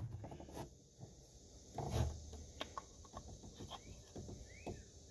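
Faint clicks and taps of a starter motor being taken apart by hand, with a soft knock about two seconds in. A few faint rising animal chirps near the end.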